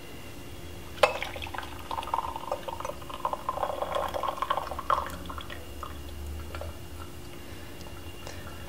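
Tea being poured from a porcelain gaiwan into a glass pitcher. A light click about a second in, then a steady stream for about four seconds that tapers off into drips.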